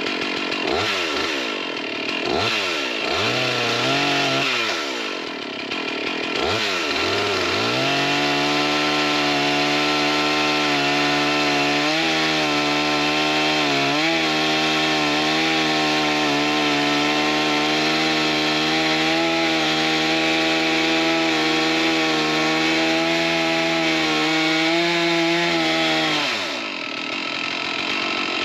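Stihl 461 two-stroke chainsaw with a 36-inch bar on an Alaskan mill, revved up and down several times, then held steady at full throttle for about eighteen seconds while ripping lengthwise through a big white pine log. The engine pitch drops near the end as the throttle is let off.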